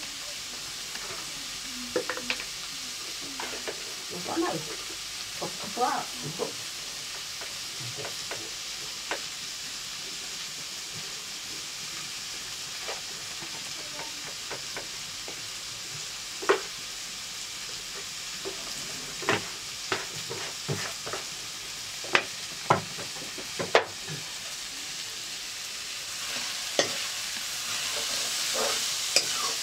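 Vegetables frying and sizzling in an iron kadai over a wood fire, a steady hiss with scattered sharp clinks and knocks from utensils. The sizzle grows louder near the end as the pan is stirred with a spoon.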